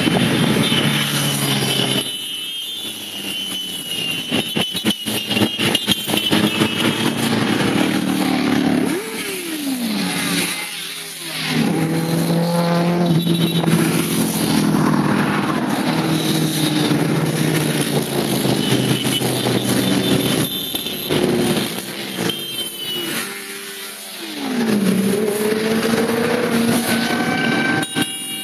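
A stream of motorcycles riding past one after another, engines running and revving; the pitch of a passing bike drops clearly as it goes by about nine seconds in and again late on.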